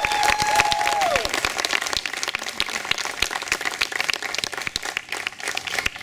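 Crowd applauding a swimmer as she is introduced, with some cheering in the first second. The clapping thins out and grows quieter toward the end.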